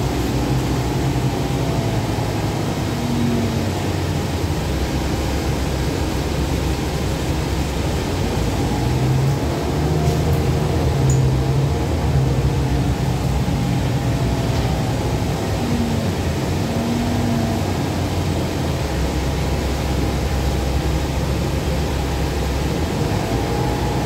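Cabin sound of a 2012 30 ft Gillig Advantage low-floor transit bus under way: steady engine drone with road and running noise. The engine note grows a little louder about ten seconds in, then settles.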